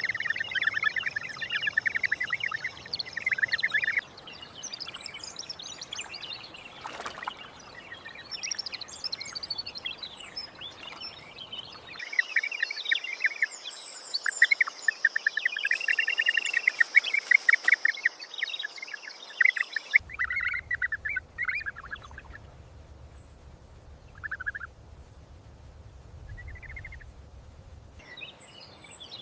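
Several small birds calling with repeated short chirps over an outdoor ambience. The background changes abruptly every few seconds, and some stretches carry a faint steady high whine.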